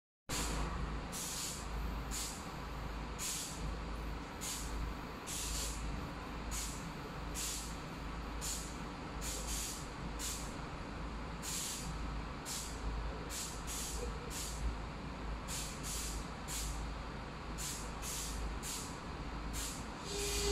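Railway station platform ambience: a steady low rumble with short hissing bursts repeating about once a second.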